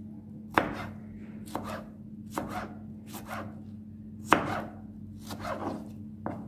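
Kitchen knife slicing a tomato on a plastic cutting board: about seven cuts, roughly one a second, each ending in a sharp tap of the blade on the board, the one a little past the middle loudest. A steady low hum lies underneath.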